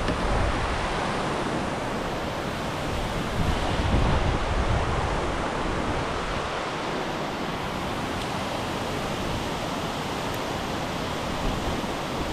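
Steady rush of river water spilling over a low concrete dam's spillways, with wind buffeting the microphone near the start and again about four seconds in.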